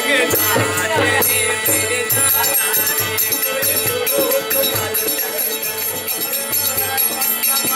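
Live Rajasthani folk music: a dholak drum keeping a steady beat, bright metal jingling of bells over it, and a steady held drone note beneath a wavering melody line.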